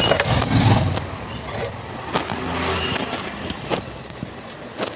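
Clicks and knocks of a hand wrench and metal parts as the engine-oil drain nut of a scooter is loosened, over a low rumble.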